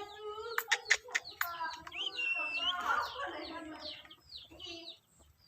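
Black-capped lory calling: pitched squawking calls with a few sharp clicks about a second in, then a clear rising-and-falling whistle, then a run of short falling chirps that fade near the end.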